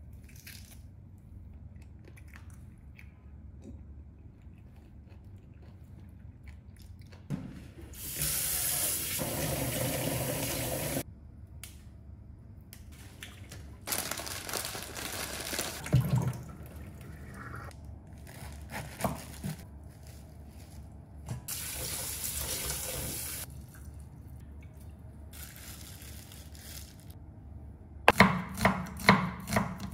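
Kitchen tap running in several separate bursts of a few seconds each, the longest about three seconds, with faint handling sounds between them. Near the end a knife starts chopping on a cutting board in quick, even strokes.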